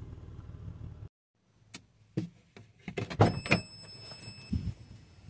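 A Suzuki X-90's 1.6-litre four-cylinder engine idling with a low hum, which cuts out abruptly about a second in. It is followed by a series of sharp clicks and knocks around the car.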